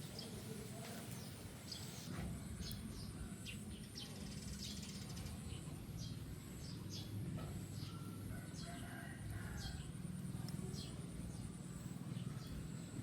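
Birds chirping: many short, high chirps scattered throughout, over a low steady rumble.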